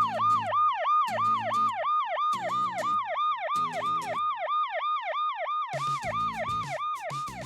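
Electronic police siren from a toy vehicle, a fast yelp of quick falling sweeps about four a second, with a low buzzing pulse coming and going underneath.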